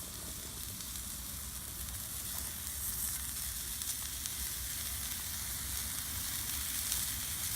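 Jarlsberg cheese frying on a hot Mojoe flat-top griddle: a steady sizzling hiss with faint scattered crackles.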